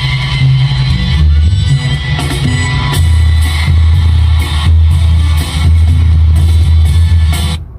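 Music played loud through a van's car stereo with an 800-watt amplifier, its heavy bass notes booming steadily; the music drops away briefly near the end.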